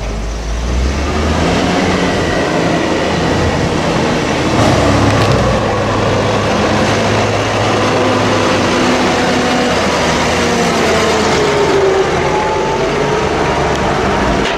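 Diesel engine of a New Holland tractor hauling a silage trailer, running steadily as it drives up and passes close by, its engine note dropping as it goes past in the latter part.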